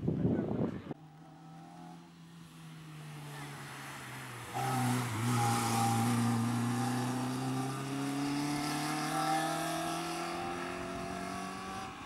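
Small hatchback rally car's engine under hard acceleration. It gets abruptly louder about four and a half seconds in as the car passes close, then its note climbs slowly as the car pulls away up the road. A brief loud burst of noise comes in the first second.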